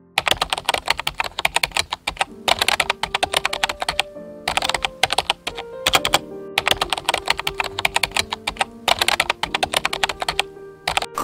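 Rapid typing on a computer keyboard, dense clicking in runs of a second or two with short pauses between, over background music.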